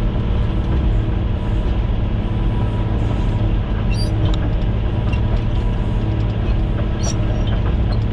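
Caterpillar motor grader's diesel engine running steadily under load, heard from inside the cab as the blade cuts a channel, with a few faint clicks and rattles.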